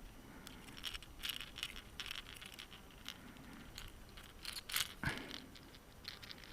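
Handling noises: scattered light clicks, rattles and rustles, in small clusters, with one sharper knock about five seconds in.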